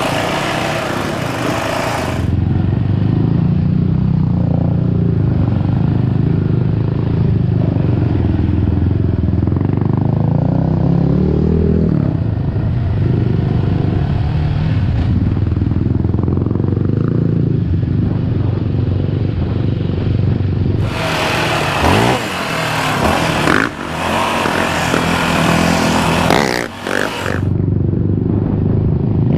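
Yamaha Raptor 700R quad's single-cylinder four-stroke engine running under throttle on a dirt trail, its pitch rising and falling as the rider works the throttle. A few knocks and rattles come in the last few seconds.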